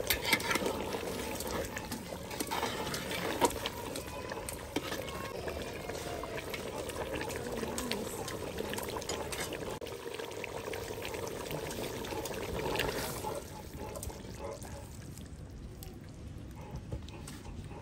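Chicken and potato curry bubbling in an aluminium pot, with a metal ladle stirring it and clicking against the pot. The bubbling and stirring grow quieter about thirteen seconds in.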